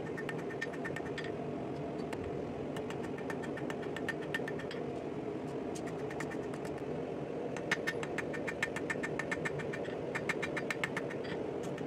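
Hand hammer striking a hot steel tine on an anvil, drawing it out into a tapered point: quick runs of ringing blows, about four or five a second, with short pauses between runs and the busiest run in the second half. A steady mechanical drone runs underneath.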